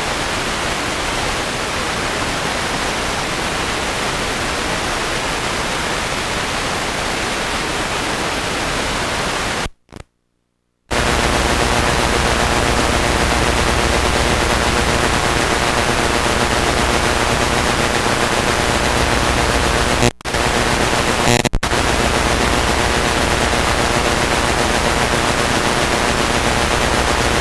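Loud static hiss from a blank stretch of videotape playing back, an even hiss broken by about a second of silence near ten seconds in and by two brief dropouts around twenty seconds in.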